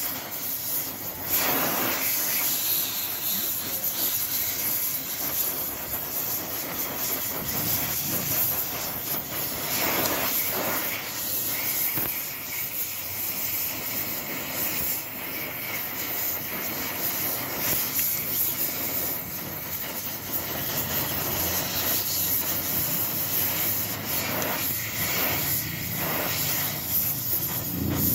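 TIG welding arc on aluminium, a continuous hiss with a few brief louder swells.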